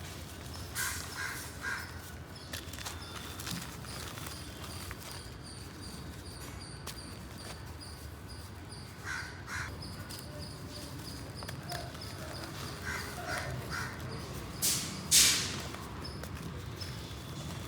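Crows cawing in short runs of three calls, three times over a steady low background. About fifteen seconds in, a single loud crunch stands out above the calls, fitting dry clay being crumbled.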